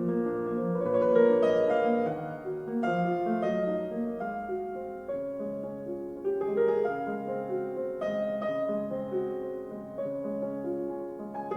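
Piano music played back through Yamaha NS-1000MM loudspeakers, a flowing passage of overlapping notes and chords.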